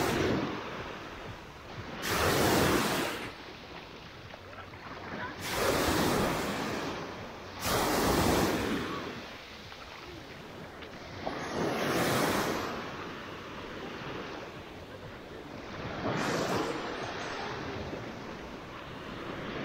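Small waves of the Black Sea breaking and washing up the sand. Half a dozen hissing surges of surf come a few seconds apart over a steady background wash.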